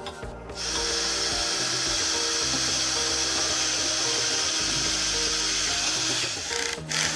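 Cordless drill boring a bolt hole through a wooden handle: it starts about half a second in, runs steadily, and stops near the end.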